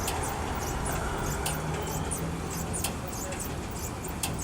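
Steady low rumble of a running vehicle, with faint short high clicks scattered over it.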